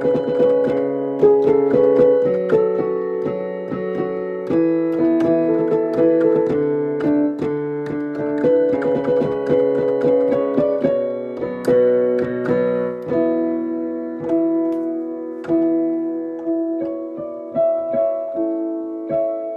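Piano being played: a continuous flow of struck notes and chords, each note decaying after it is struck.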